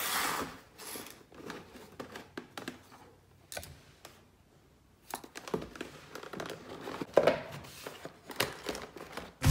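Hands handling a cardboard phone box: faint scattered taps, scrapes and rustles of cardboard as the box is turned over and opened, with a quiet spell in the middle.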